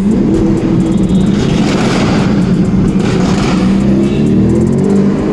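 Car engine and road noise heard from inside the cabin while driving, the engine note rising as the car accelerates about four seconds in, then settling into a steady drone.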